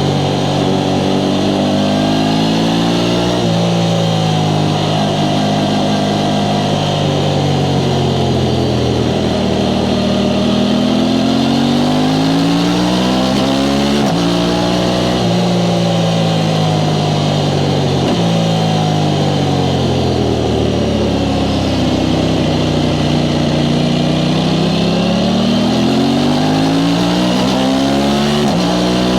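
Aprilia Tuono 660 Factory's parallel-twin engine through its stock exhaust, heard on the move. Its pitch climbs and falls repeatedly as the bike accelerates and slows, with a few abrupt changes in pitch where the rider shifts gear.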